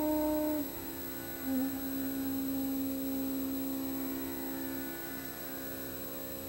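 Soft, slow background music: a sustained drone of long held tones that shift pitch about half a second and a second and a half in, then hold steady.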